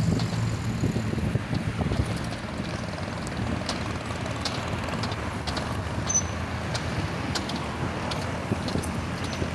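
Road traffic: cars driving past, a steady engine and tyre rumble with scattered light knocks.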